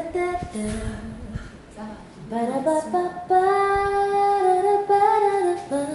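A woman singing unaccompanied, her notes sliding up into long held tones, the longest held from about three seconds in until near the end.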